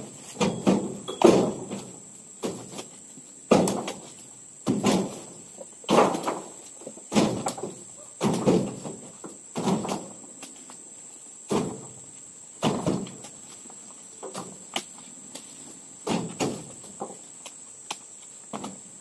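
Oil palm fruit bunches pitched one after another into a pickup truck's bed, each landing with a heavy thud, about one a second and a little weaker near the end. A steady high-pitched insect drone runs underneath.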